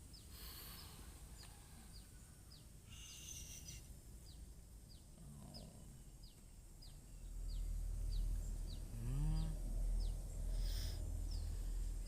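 A bird chirping over and over, short falling peeps about twice a second, under a low rumble that comes in about seven seconds in.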